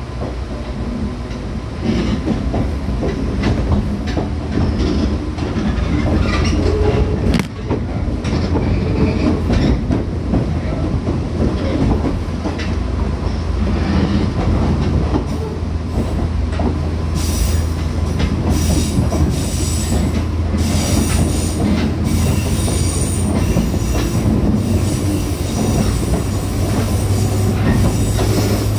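Running sound of a JR West 105 series electric train heard from on board: a steady low traction-motor hum and wheels on rail, with scattered clicks. Sharp, high-pitched wheel noise comes again and again in the second half, and the hum rises slightly near the end.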